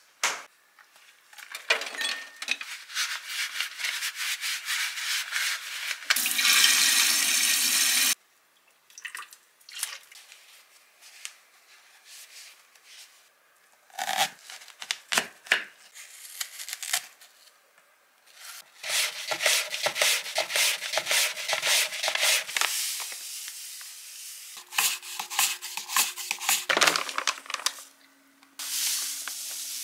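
Apple being prepared by hand: a knife cutting into a whole apple, then many quick scraping strokes as the apple is slid across a hand-held mandoline slicer. A steady hiss lasts about two seconds, six seconds in.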